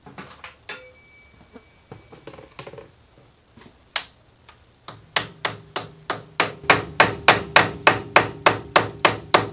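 Mallet blows on metal on a 1940s Sheldon lathe spindle, knocking a part up tight with the back gear locked to hold the spindle. A few light knocks come first, then from about five seconds in a fast, even run of ringing strikes, about three a second.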